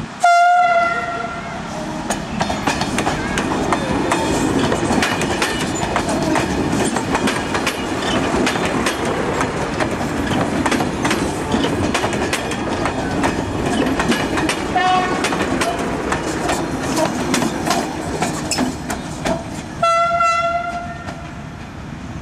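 Narrow-gauge diesel railcar train sounds a single-tone horn blast of about a second, then passes close by with a steady rumble and rapid clicking of wheels over rail joints. A short horn toot comes about 15 seconds in, and another horn blast of about a second comes near the end.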